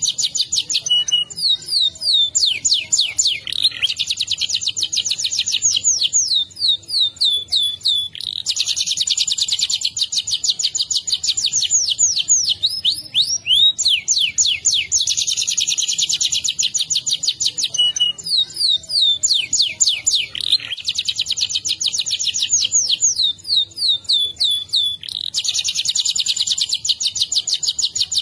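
Domestic canary singing a long rolling song: fast, dense trills held for several seconds at a time, broken by runs of quick downward-sweeping notes.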